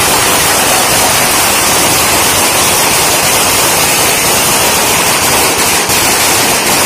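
A long string of firecrackers going off, a loud, dense and unbroken rattle of rapid bangs.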